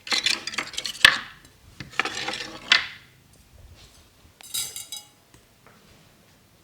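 Metal head massager clinking and jingling in three bursts: about a second of rattling at the start with a sharp click, another second of it about two seconds in, and a short ringing jingle near five seconds.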